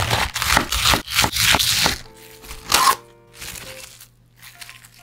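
Kitchen knife cutting through a raw cabbage on a wooden cutting board: crisp crunching strokes in quick succession for about two seconds, then one more loud cut. Near the end comes a softer rustle of cling film being handled, over soft background music.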